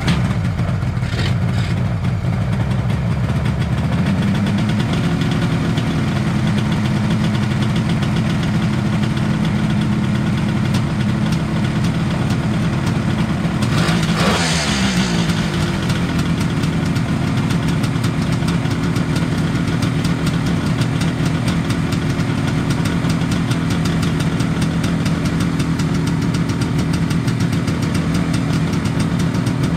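1973 Kawasaki H1 500 three-cylinder two-stroke engine catching on the kick-start from cold and running at a steady idle that steps up a few seconds in. About halfway through it gives one quick rev that falls back to idle.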